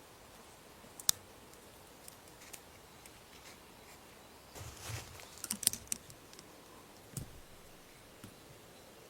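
Scattered sharp clicks and light knocks over a faint hiss, with a quick run of them about five to six seconds in.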